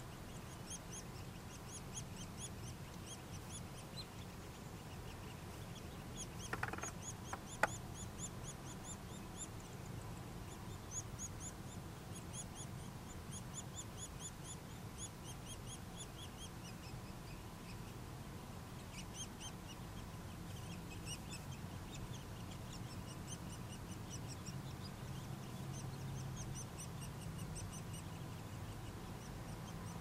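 Nuttall's woodpecker nestlings begging from inside the nest cavity: fast runs of high, thin calls, several a second, in bursts with a short pause just past the middle. Two sharp knocks a second apart, around a quarter of the way in, are the loudest sounds.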